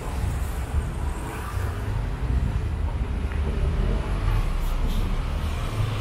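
Street traffic passing: a steady low rumble of car and engine noise.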